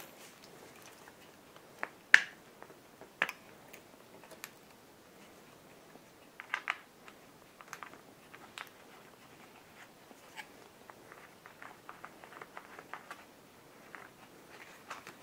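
Hands working on a Kustom Pro 1000 radar antenna and its loose cable connector nut with a small tool: scattered sharp clicks and taps, the loudest about two seconds in, then a run of light quick ticks near the end.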